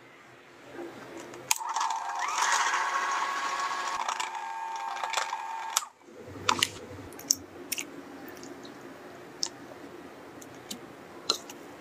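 Hand blender motor running steadily with a whining pitch, blending watermelon flesh inside the hollowed rind into juice, then cutting off abruptly about six seconds in. A few light clicks and a low hum follow.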